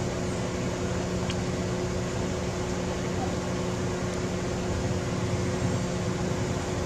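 A steady mechanical hum with a constant tone over an even hiss, unchanging throughout. A faint short high chirp comes once, about a second and a half in.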